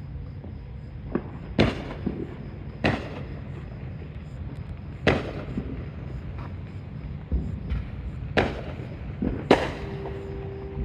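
Fireworks going off: about six sharp bangs at uneven intervals, with a few fainter pops between them, over a steady low rumble. A steady tone comes in near the end.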